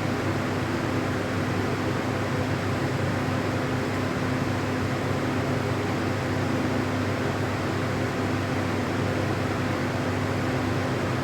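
Steady mechanical hum and hiss, with a constant low tone.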